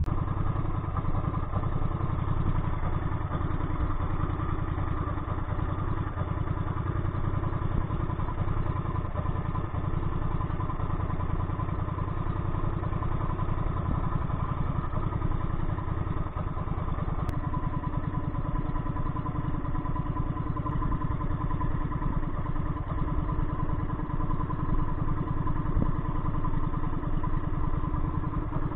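Engine of a motorized bangka outrigger boat running steadily underway, a continuous drone with a fast, even low chug.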